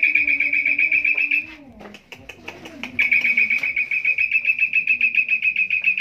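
Tame Asian pied starling (jalak suren) calling in a rapid, even, high trill of about ten notes a second on one pitch. It comes in two bouts: a short one at the start and a longer one from about halfway.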